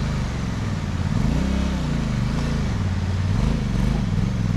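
Motorcycle engine revving up and down repeatedly as the bike is worked up out of a rocky creek crossing.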